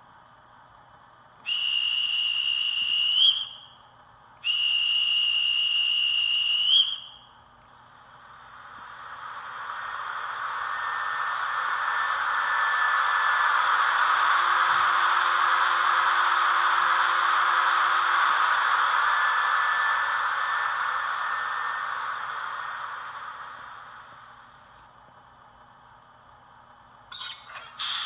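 Sound effects from the onboard speaker of a Märklin 36632 HO Class 185 electric locomotive model: two separate high horn blasts of about two seconds each, each rising slightly in pitch at the end, then a long hiss that swells up, holds for several seconds and fades away. A burst of sharp clinks near the end.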